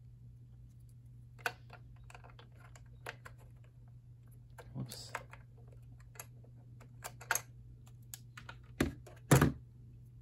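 Scattered light plastic clicks and taps from the clear plastic number-card cover of a Cortelco Patriot II desk phone being handled and pressed into its slot. Near the end come two louder knocks as the handset comes off the cradle and is set down on the desk. A faint steady hum sits underneath.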